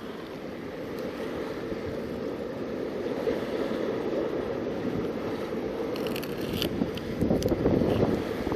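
Wind buffeting the microphone over the wash of the sea against the rocks, a steady rushing noise, with a few faint clicks late on.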